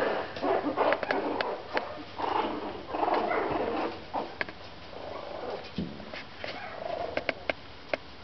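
Puppies playing and wrestling, with small growls and whines in uneven bursts and many short sharp clicks scattered throughout.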